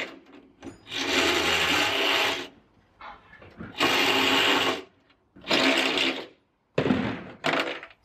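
Electric drill boring holes through the bottom of a metal military storage box, run in four bursts of about a second each with short pauses between.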